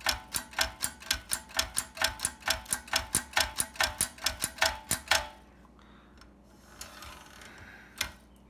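Mechanism of an 1887 Caligraph No. 2 typewriter clicking, about five even metallic clicks a second, stopping about five seconds in; one more click near the end.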